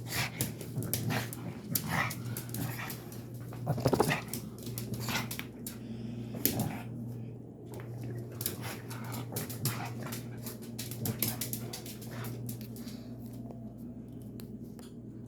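A pug making weird sounds after a bath: many short, sharp noises in irregular quick succession, loudest about four seconds in, growing sparser near the end, over a steady low hum.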